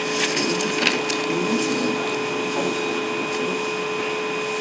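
Steady background hiss with a faint constant whine, and a few faint clicks in the first second or so.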